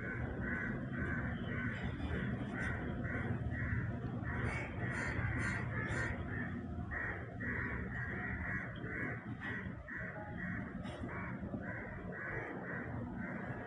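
A bird calling over and over, a short call repeated evenly about three times a second.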